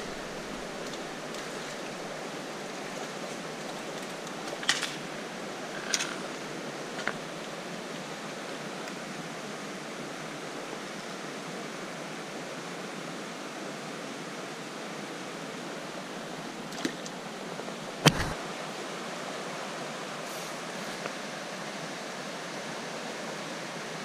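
Steady rushing of a mountain river's current over stones, with a few brief clicks and one sharper knock near the end.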